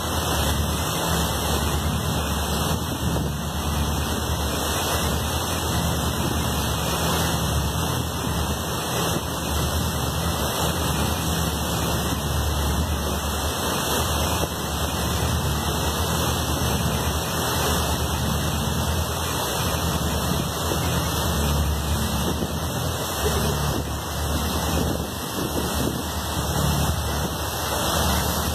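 Passenger boat underway: a steady low engine rumble under a constant rush of water and wind.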